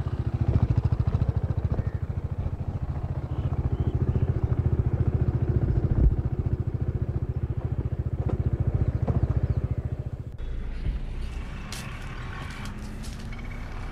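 Sport motorcycle engine running with a rapid, even pulse as the bike rides off, with one sharp knock about six seconds in. The engine sound cuts off suddenly about ten seconds in, leaving quieter street background with a few light clicks.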